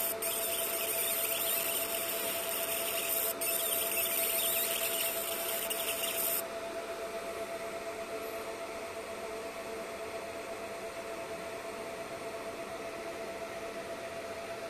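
Laser engraver marking a stainless steel tag: a high-pitched hissing buzz, broken twice for an instant, that cuts off suddenly about six seconds in, leaving only a steady hum.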